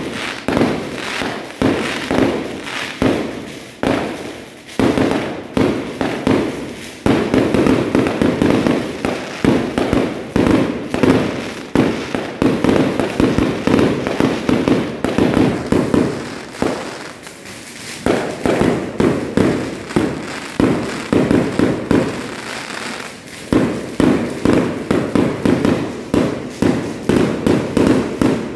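Fireworks going off in a rapid, continuous barrage of bangs and crackling, thinning out briefly twice before picking up again.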